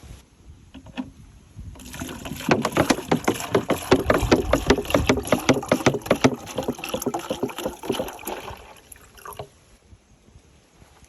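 Water splashing and sloshing in a quick, rhythmic run of strokes, starting about two seconds in and stopping near the end.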